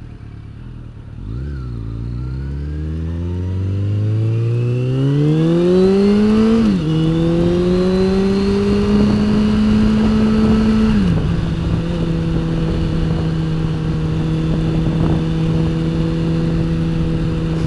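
Motorcycle engine pulling away from a stop, its pitch climbing steadily for about five seconds, then dropping at an upshift about seven seconds in. It climbs gently again and drops at a second upshift about eleven seconds in, then holds a steady cruising note, with wind rush building as speed rises.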